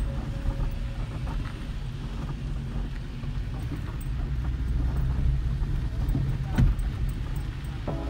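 Car interior noise while driving over a rough, unpaved dirt road: a steady low rumble of engine and tyres, with a single sharp knock about two-thirds of the way through.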